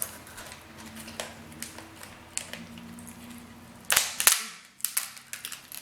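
King crab leg shells being cracked and broken open by hand close to the microphone: scattered sharp snaps and crunches, the loudest cluster of cracks about four seconds in.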